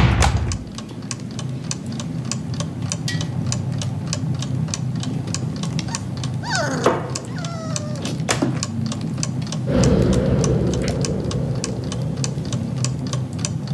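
Rapid, irregular clicking of typing on a computer keyboard, with a couple of short sliding squeaks about halfway through and a low hum coming in about two-thirds of the way through.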